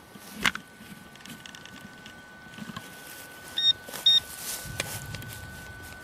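Metal detector electronics on a target: a click, then a steady high tone, then two short electronic beeps close together. After the beeps comes a rough, scraping noise as a spade cuts into turf and soil.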